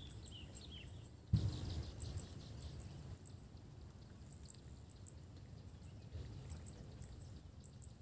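Quiet riverbank ambience with a low rumble on the microphone. A few short bird chirps sound in the first second, and a single sudden bump comes about a second and a half in.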